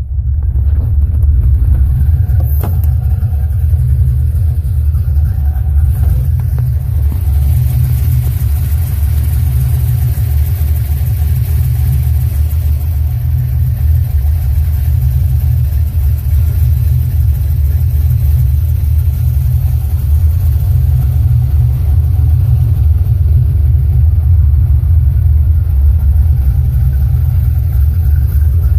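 Car engine running steadily with a strong low rumble. The owner asks whether its noise is a lifter tick.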